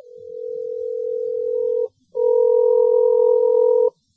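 Two long, steady electronic beeps of the same pitch, each just under two seconds with a brief gap between them; the second is louder.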